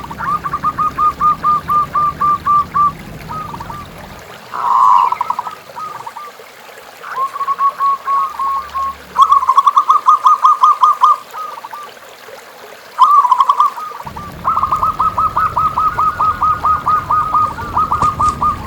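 Zebra doves (perkutut) cooing: several runs of rapid, evenly repeated staccato notes, each lasting a second or a few seconds, with short pauses between them. A low rumble sits under the calls at the start and again near the end.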